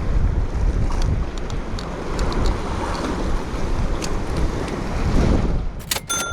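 Wind buffeting the microphone over the wash of sea waves, a dense rushing noise with a low rumble. Near the end come a couple of sharp clicks and a short high tone.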